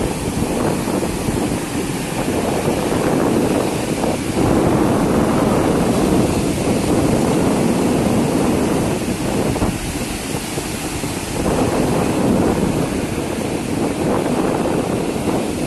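Wind buffeting the microphone over the wash of sea waves: a loud, continuous rush that swells and eases.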